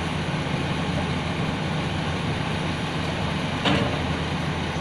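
Heavy diesel engine of earthmoving machinery running steadily, with one sharp clank about three and a half seconds in.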